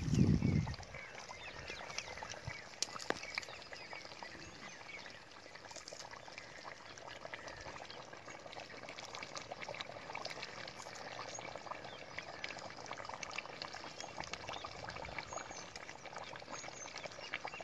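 Chicken curry gravy simmering and bubbling in a pan over a wood fire, a steady bubbling full of small crackles. A low thump at the very start.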